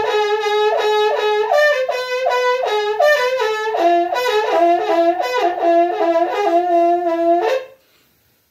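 Ñolkin, a Mapuche wind instrument made from a long hollowed plant stem ending in a horn bell, played in quick short notes that jump back and forth between a few pitches. The playing stops abruptly about a second before the end.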